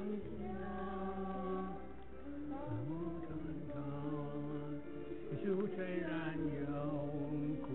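Background vocal music: voices chanting in long held notes that step from pitch to pitch.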